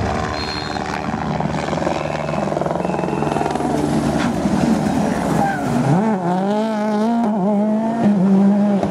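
World Rally Car's turbocharged four-cylinder engine at full throttle on a rally stage. It grows louder over the second half, and its pitch rises and falls sharply as the driver shifts gear and lifts off.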